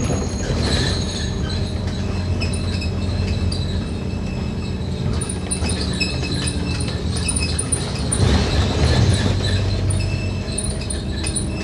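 Inside a moving Scania K310UD double-decker bus: the steady drone of its five-cylinder diesel engine and drivetrain, with faint high-pitched rattles from the bodywork. The engine note swells about eight seconds in, then settles again.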